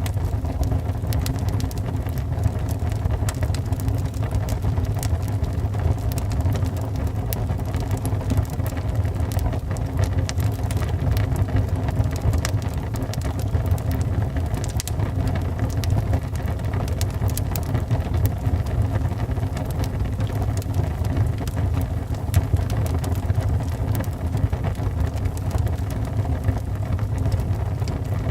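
Wood fire burning in a fireplace: a steady low rumble of flames with frequent small crackles and pops from the burning wood.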